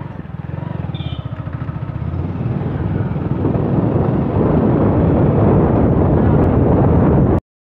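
Motorcycle engine running as the bike rides along, with wind and road noise building as it gathers speed. The sound cuts out abruptly near the end.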